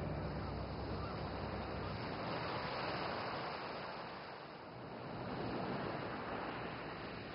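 Soft, steady rushing noise that swells and eases, dipping lowest about four and a half seconds in.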